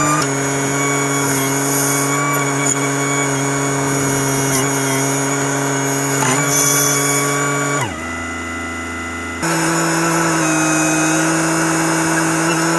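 Volvo EC15B mini excavator's diesel engine running steadily at working speed. About eight seconds in it drops to a lower speed and quieter note, then picks back up about a second and a half later.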